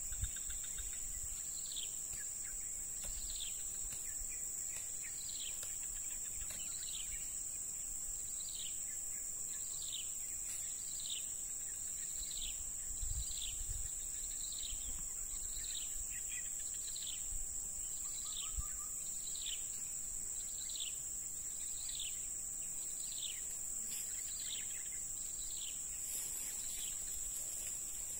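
A steady, high-pitched insect drone, with a bird repeating a short, falling whistled note a little more than once a second.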